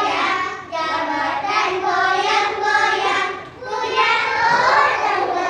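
Group of young children singing an action song together, in phrases with short breaks under a second in and about midway.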